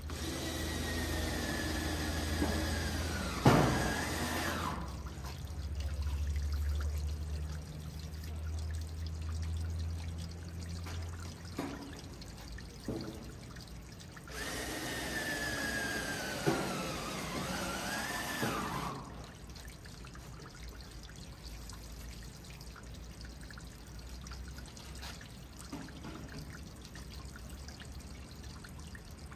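Water pouring in two spells of about four to five seconds, each with a tone that slides down and then back up; a low hum runs under the first part.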